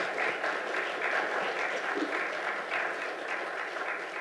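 Congregation applauding steadily, many hands clapping together.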